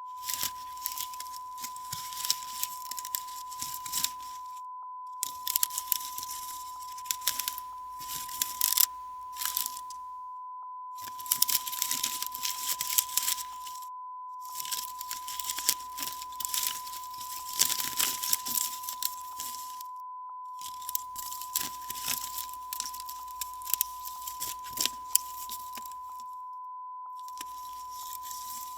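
Slats of a Japanese sudare blind rustling and clicking against one another in six takes, with short pauses between them. A steady high beep tone runs under it all, a watermark on the sample.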